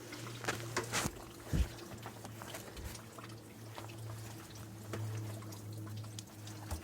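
Soaking-wet newspaper being wrapped around sweet potatoes, water trickling and dripping off it, with a few soft taps and crinkles in the first two seconds over a steady low hum.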